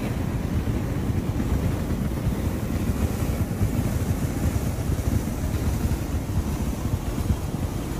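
Wind buffeting the phone's microphone: a steady, fluttering low rumble.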